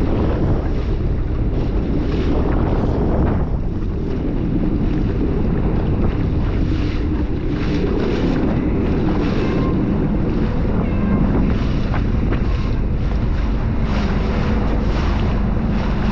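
Wind buffeting the microphone over a personal watercraft running on the water, with water splashing against the hull; a steady, continuous din.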